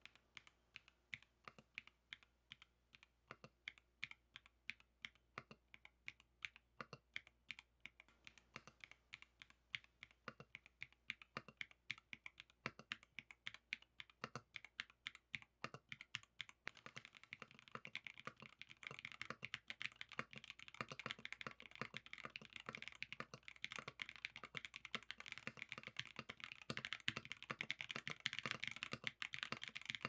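Typing on an Isabell 60 custom mechanical keyboard with a gasket-mounted aluminum plate, Peach Bloom linear switches and Cherry Taro keycaps: a stream of keystroke clacks, spaced out at first and gradually quickening. From about halfway through the typing becomes faster, denser and louder.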